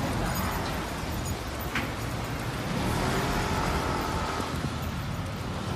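Steady city street traffic noise, a low rumble of passing vehicles.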